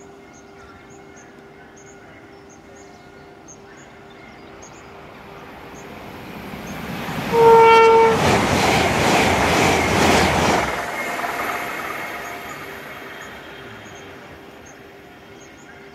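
LNER Azuma high-speed train approaching and passing close by at speed: a rush of wheels and air that swells, peaks for about three seconds and fades away. One short train-horn blast sounds just as it draws level.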